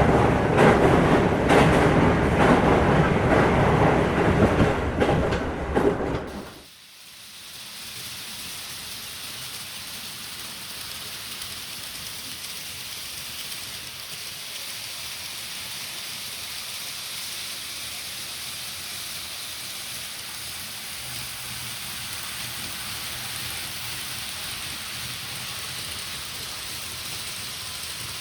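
A train running, a loud rumble with fast clattering, that cuts off abruptly about six and a half seconds in; then a steady, even hiss for the rest of the time.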